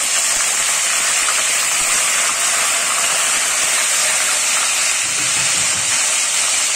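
Ginger-garlic paste sizzling steadily in hot oil in a stainless steel kadai as it is stirred with a spatula.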